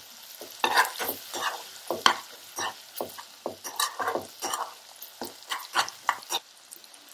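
Metal spoon stirring and scraping a masala of tomato and spices sizzling in mustard oil in a kadhai, at about two strokes a second. The strokes stop near the end. The masala is being fried (bhuna) in the oil.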